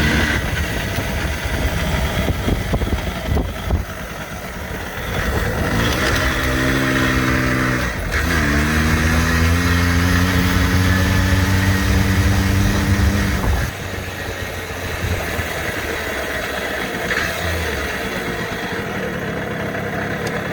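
1976 Yamaha V50's small single-cylinder two-stroke engine running, just brought back from a non-runner with a rejetted carburettor and a new plug. It is revved up twice, the second time held for several seconds, then drops back to a steady idle about two-thirds of the way through.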